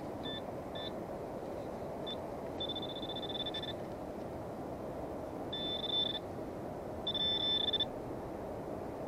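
Handheld metal-detector pinpointer beeping as it is probed through beach sand to locate a buried target. It gives three short high beeps in the first two seconds, then three longer continuous tones of about half a second to a second each.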